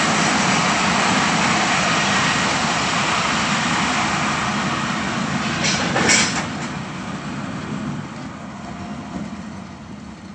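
Multi-section electric pusher locomotive at the rear of a freight train rolling past close by, a steady rumble of wheels on rail with a sharp bang about six seconds in as its last cab passes, then fading as it draws away.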